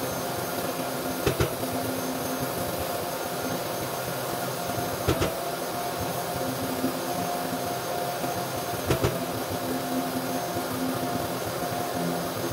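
Steady machine hum with a few fixed tones under an even noise, broken three times by a sharp double tap or click, about four seconds apart.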